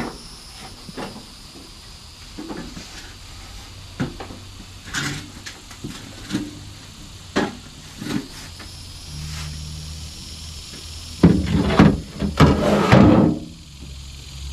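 Scrap aluminum siding being handled and loaded: scattered knocks and clanks, then a louder metallic clatter about eleven seconds in that lasts about two seconds.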